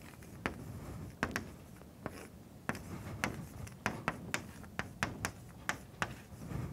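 Chalk writing on a blackboard: an irregular run of sharp taps, several a second, with short scratches as the chalk strikes and strokes across the board.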